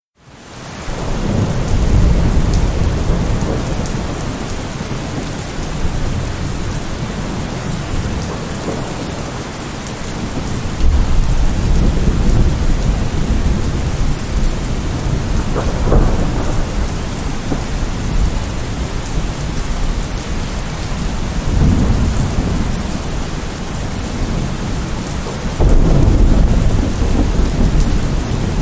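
Heavy rain falling steadily during a thunderstorm, with thunder rumbling several times, one roll sharper than the rest about sixteen seconds in. The sound fades in over the first second.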